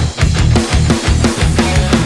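Heavy rock music with distorted guitars and a driving beat; no vocal line in these seconds.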